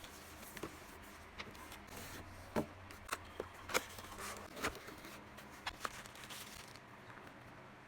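Sparse, irregular clicks and taps from a mechanical keyboard, with a low steady hum underneath; the sharpest knocks come a little before halfway.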